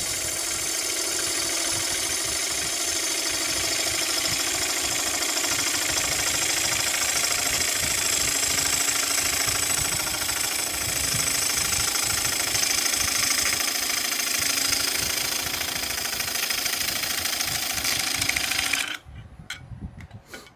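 Wood lathe spinning a maple blank while a turning tool cuts into it, giving a steady, dense shearing hiss over the lathe's running noise; the maple is cutting cleanly, like butter. The cut stops abruptly near the end, leaving only a few faint clicks.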